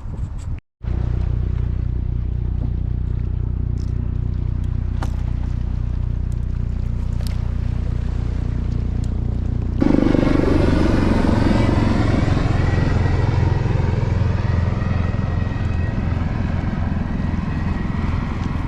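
Helicopter flying low overhead: a steady low drone of rotor and engine that suddenly gets louder and fuller about ten seconds in as it passes over.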